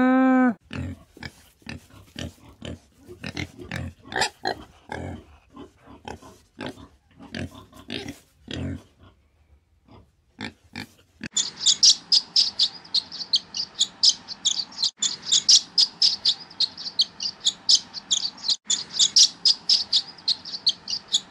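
A warthog grunting in a run of short, irregular grunts for about ten seconds, after the tail of a pitched animal call at the very start. Then, from about eleven seconds in, swallows twittering in rapid, high chirps.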